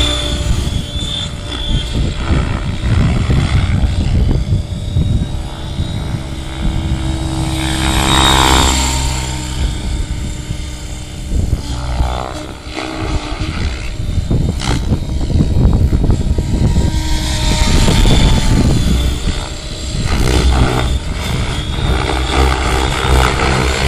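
Electric Align T-Rex 700 DFC RC helicopter in aerobatic flight: its main rotor blades and motor whine steadily. The pitch sweeps up and down as it passes close, about 8 and 12 seconds in.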